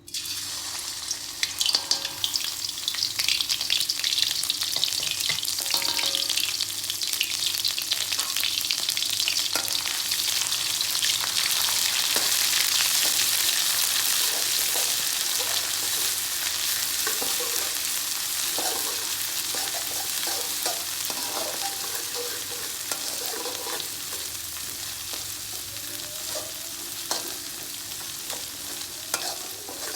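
Food dropped into hot cooking oil in a pan, sizzling and crackling while a utensil stirs and scrapes through it. The sizzle starts suddenly, is loudest about halfway through, and eases a little toward the end.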